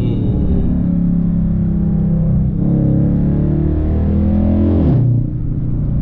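Dodge Charger R/T's 5.7-litre Hemi V8 accelerating, heard from inside the cabin with the active exhaust valve held open in track mode. The engine note rises, dips briefly about two and a half seconds in, climbs again, then drops off sharply about five seconds in.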